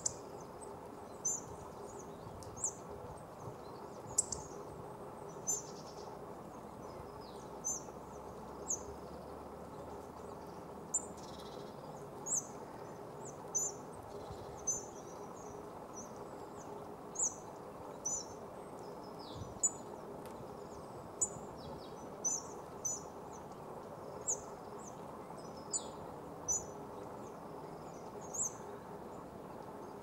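Great tit giving short, thin, high-pitched call notes, irregularly spaced at roughly one a second, over a steady background hum.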